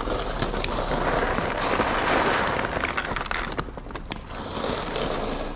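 A plastic bag of dry cat food rustling as kibble is poured into a plastic tub, a steady rustle that swells in the middle, with a few sharp clicks in the second half.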